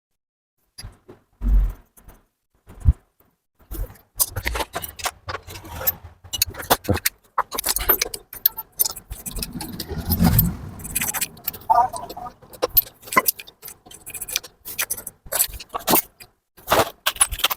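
Loose metal engine parts and hand tools clinking and rattling as they are handled, in quick irregular clicks with a few dull knocks.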